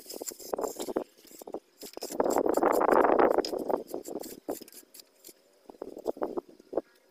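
Wet cement mortar being rubbed and smoothed by hand, in short scratchy strokes, with one longer, louder rub from about two to four seconds in.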